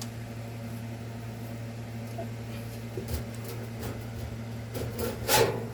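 Light metal clicks and knocks as a dryer's heater assembly is worked loose, with a louder clunk about five seconds in, over a steady low hum.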